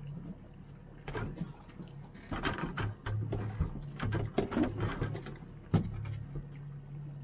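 Boat outboard motor running steadily with a low hum, under irregular knocks and clatter.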